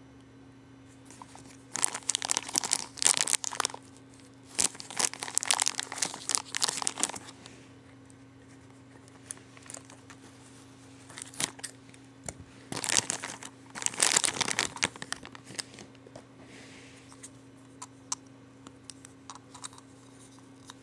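Toy packaging crinkling and tearing as it is opened by hand. The rustling comes in four spells with small clicks between them, over a faint steady low hum.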